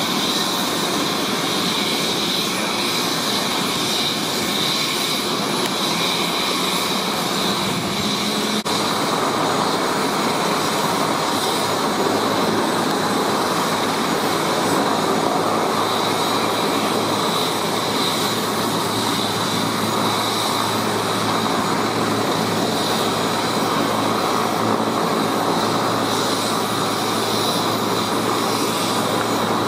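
Twin-turbine Airbus EC145 helicopter running on the ground: a steady high turbine whine over an even rushing noise, without change in pitch.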